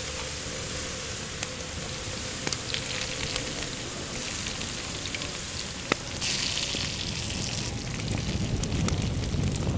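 Garlic sizzling in oil on a stainless steel griddle over wood embers as whole raw prawns are laid into it, a steady frying hiss with a few sharp pops. A louder burst of hissing lasts about a second and a half a little past the middle.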